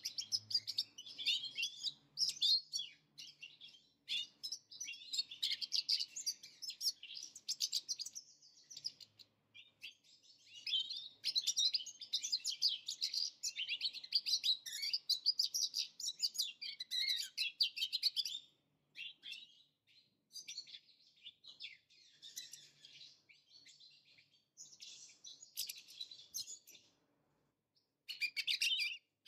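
European goldfinches singing: a busy, high twittering of quick chirps and trills that goes on almost without a break, pausing briefly near the end.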